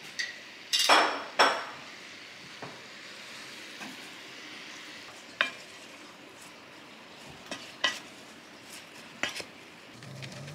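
A big batch of onions sizzling in a pot while a utensil stirs them, with sharp clinks and scrapes against the pot: two loud ones about a second in, then single knocks every couple of seconds.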